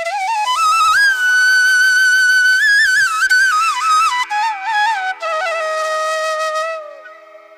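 Flute playing a slow, ornamented melody with pitch bends over a steady drone, in the style of Indian classical music; the phrase fades out near the end.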